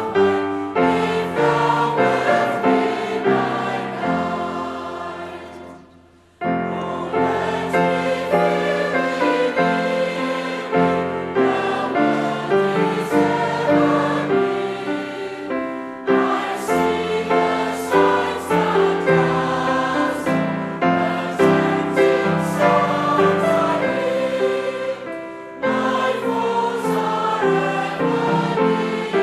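Choral music: a choir singing, fading out about six seconds in and starting again straight away.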